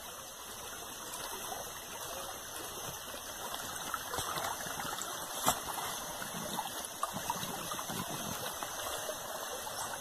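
Small forest creek running steadily, a continuous rush of flowing water. A single brief click sounds about five and a half seconds in.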